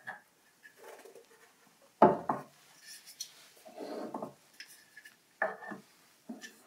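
Small wooden figurines, a box and a miniature wooden chair being picked up and set down on a shelf: a few light knocks and taps, the loudest about two seconds in.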